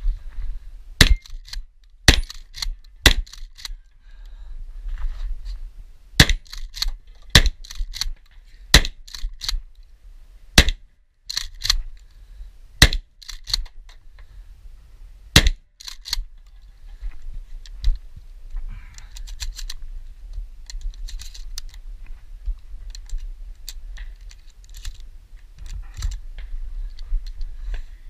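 Remington 870 pump-action shotgun firing buckshot in quick succession, about a dozen loud shots over the first sixteen seconds. Lighter clicks and rattles follow for about ten seconds, then two or three more shots near the end.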